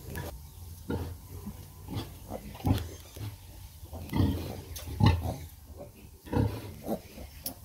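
Pigs grunting in short, repeated grunts, about two a second, while piglets suckle at a nursing sow.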